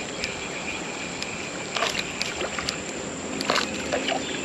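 Shallow creek water sloshing and splashing, with a few short clicks and splashes about two seconds in and again near three and a half seconds, as a small fish is landed. A steady insect trill runs underneath and fades out about a second and a half in.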